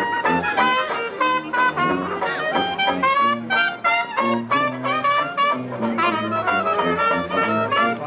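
A small trad jazz band playing live: clarinet and trumpet carry the tune over steady strummed banjo chords and a regular bass line.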